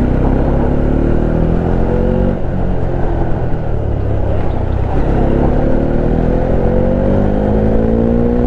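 Bajaj Dominar 400's single-cylinder engine accelerating under throttle, its pitch rising for about two seconds, breaking off for a gear change, then climbing again steadily from about five seconds in. Heavy wind rumble on the helmet-mounted microphone runs underneath.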